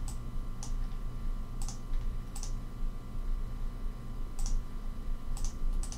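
Computer mouse and keyboard clicking: about seven short, sharp clicks at irregular intervals, over a steady low electrical hum.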